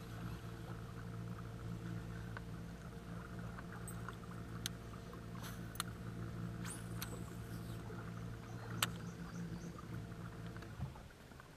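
Electric trolling motor on a bass boat humming steadily, then cutting off near the end. A few sharp clicks are scattered through the middle.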